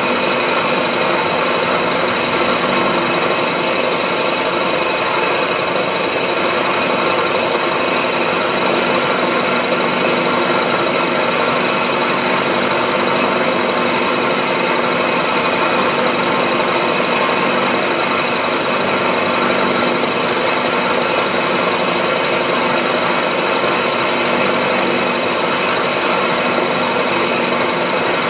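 Metalworking machine tool running steadily under power, an even, constant machine noise with a high whine that does not change.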